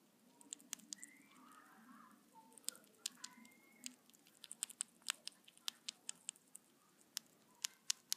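Baby dwarf lemur chewing a grasshopper: crisp crunching clicks of the insect's body, sparse at first and coming quickly, several a second, in the second half.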